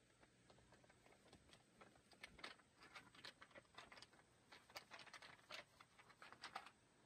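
Faint, irregular clicks and crunches of whole coffee beans being ground by hand.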